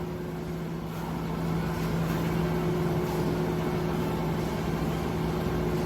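A steady mechanical hum of constant pitch over a hiss, growing slightly louder about a second in.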